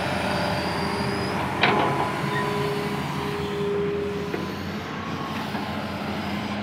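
Hitachi hydraulic excavator's diesel engine running steadily, with a single sharp metal knock about one and a half seconds in and a thin steady whine for a couple of seconds after it.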